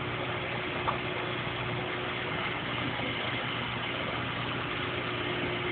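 An engine running steadily at idle: an even hum with a constant tone and no revving.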